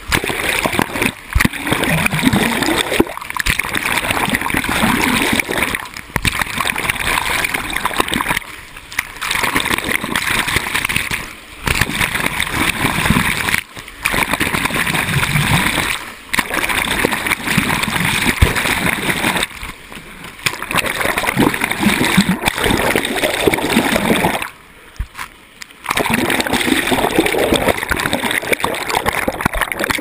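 Shallow water splashing and sloshing as a person crawls through a stream-filled culvert pipe, in surges broken by brief pauses every two to three seconds.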